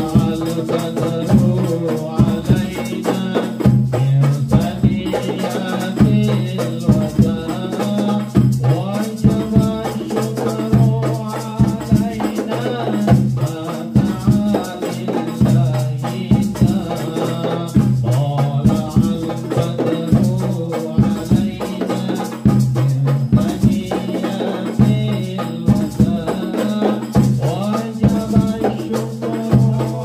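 Hadroh ensemble playing a sholawat: rebana frame drums and jingling tambourines keep up a fast, steady beat while a man sings through a microphone.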